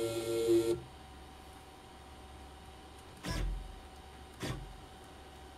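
Motor drive of a CNC-converted E1N lathe: a steady whine with several tones that stops abruptly within the first second. Then two short motor moves, about 3 and 4.5 seconds in, each a brief whir that slides in pitch.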